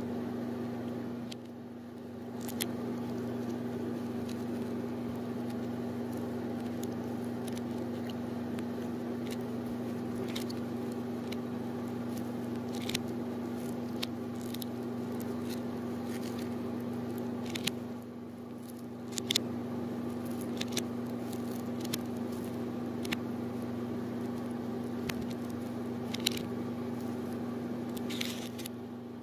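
Steady electrical hum with a broad rushing noise, like a running kitchen appliance, with scattered small crackles and clicks as a toasted waffle is broken apart by hand, played in reverse.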